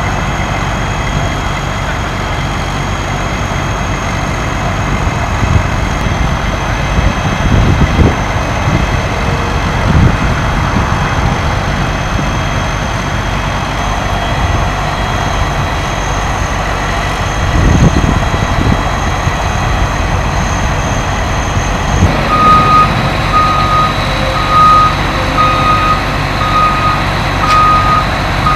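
Steady rush and rumble of a fire engine's pump running and fire hoses spraying water, with a high steady whine over it and a few dull low thumps. About three-quarters of the way in, a vehicle's reversing alarm starts beeping about once a second.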